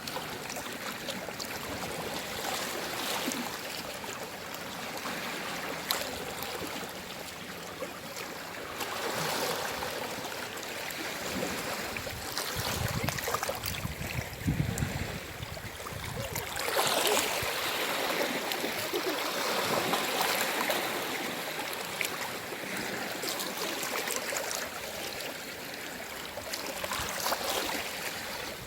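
Gentle sea waves washing in and draining back over the shore, swelling and easing every few seconds, with a fizzing crackle as the water runs back.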